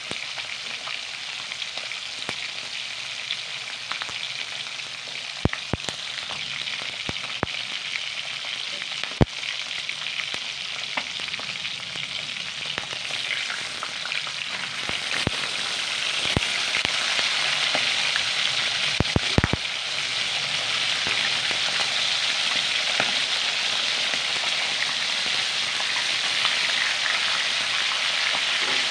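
Pork belly strips frying in hot oil in a pan: a steady sizzle with sharp pops of spattering oil every few seconds, growing louder about halfway through.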